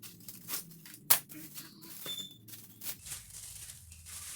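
A rod's shipping package being opened by hand: scattered clicks, scrapes and rustles of wrapping, with one sharp snap about a second in.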